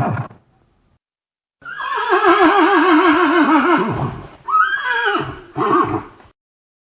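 Horse whinnying: a long neigh with a rapidly wavering pitch, starting about a second and a half in, that falls away at its end, followed by two shorter calls. The tail of a short call is heard at the very start.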